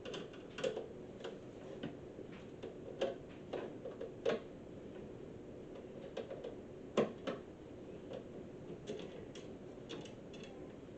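Scattered light clicks and taps from hands and a screwdriver handling a garage door opener's casing, irregularly spaced about a second apart, with sharper knocks about four and seven seconds in.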